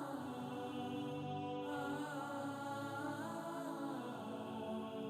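Soft background music in a chant style: a wavering sung vocal line over sustained held tones.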